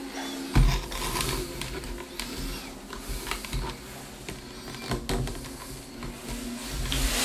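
Irregular clicks and ticks over a steady low hum, with a heavy thump about half a second in and a hiss swelling near the end.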